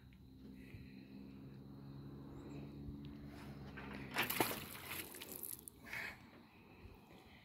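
A fishing magnet on a rope is thrown off a dock and splashes into the lake about four seconds in. A low, steady hum runs underneath before the splash.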